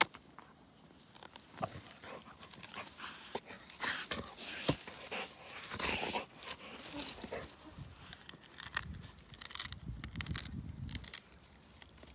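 Cane Corso puppy playing in long grass: rustling as she rolls and wriggles, and irregular crunches and cracks as she chews and pulls on a wooden stick.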